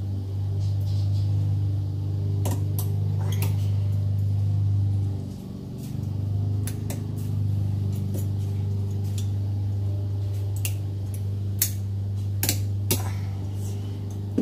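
A steady low hum, dipping briefly about five seconds in, with scattered sharp metallic clicks and clinks from metal parts being handled while a dishwasher door spring is repaired.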